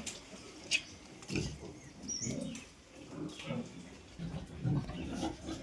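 Pigs grunting on and off in short, low grunts, with a sharp click a little under a second in.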